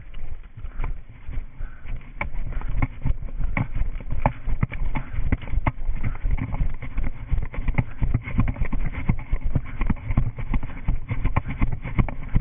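Running footsteps on grass, picked up by a body-worn GoPro: a steady rhythm of footfalls, about two to three a second, with the camera jostling and some rumble of wind.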